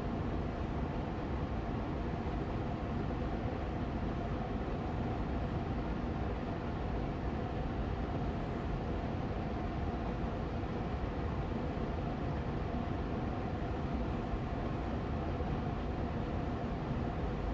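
Austin Air Allergy Machine air purifier fan running steadily on medium speed: an even rush of air with a faint, constant hum.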